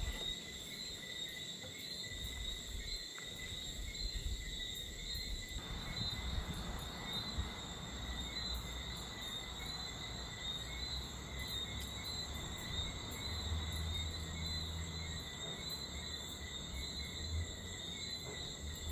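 Night insects, crickets, chirring in a steady high-pitched chorus with a fast pulse, over a low rumble.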